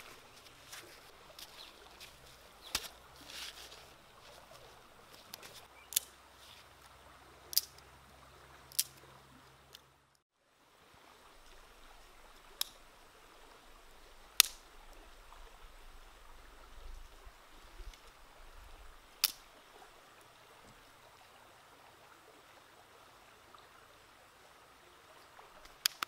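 Sharp, isolated clicks, about eight of them at uneven intervals a second to several seconds apart, over a faint steady background, with a moment of dead silence about ten seconds in.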